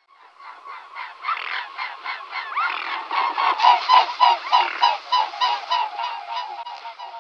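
Swans honking, an inserted animal sound effect: a fast run of repeated honks, several a second, that fades in, is loudest around the middle and fades out near the end.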